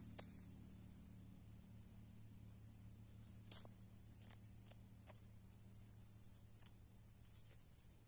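Faint insect chirping, a high-pitched trill that swells and fades in regular pulses. Over it come a few soft ticks and snaps from feathers being plucked by hand, the loudest about three and a half seconds in.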